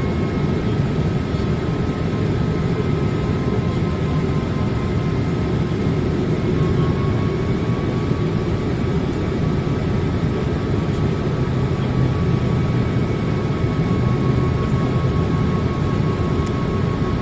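Steady cabin noise inside a Boeing 787-8 Dreamliner in flight: the even roar of engines and airflow, with a faint steady whine above it.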